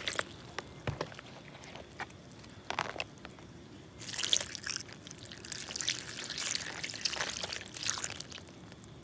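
Water poured in a thin stream onto wild mushrooms on a banana leaf, trickling and splashing as a hand rubs and squeezes them clean. There are scattered drips in the first few seconds, then heavier splashing about four seconds in and again from about six to eight seconds in.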